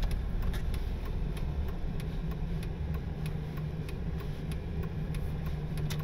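Dodge pickup truck driving on a snow-covered road, heard inside the cab: a steady low rumble of engine and tyres, with faint scattered ticks.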